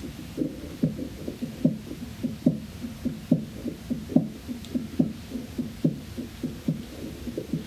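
Korotkoff sounds heard through an electronic stethoscope: regular low thudding taps about every 0.8 s, softer ones between them, as the blood-pressure cuff slowly deflates. They are the pulse forcing through the partly squeezed arm artery, heard while the cuff pressure lies between the systolic and diastolic readings.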